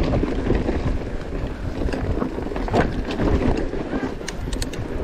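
Wind buffeting the camera microphone over the rumble of a mountain bike on a loose, rocky trail, with many small clicks and knocks from tyres and bike on stones, more of them near the end.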